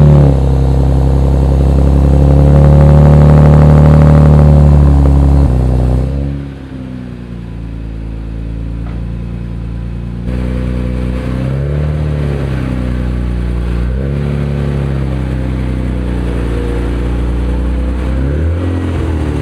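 2023 Nissan Z's 3.0-litre twin-turbo V6, breathing through catless downpipes and a Fast Intentions TDX-style X-pipe catback, idling fast just after starting. About six seconds in the idle drops to a lower, steady note, with the pitch rising briefly twice later on.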